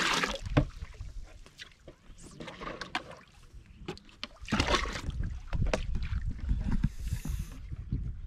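Small wooden canoes moving on the water: irregular splashing and sloshing with a few short wooden knocks, over a low rumble of wind on the microphone.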